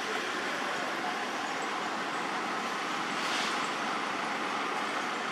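Steady rushing background noise with no distinct events in it.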